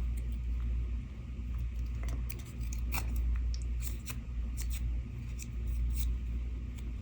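Scissors trimming small cardstock pieces: a run of short, crisp snips and paper clicks through the middle, over a low steady hum.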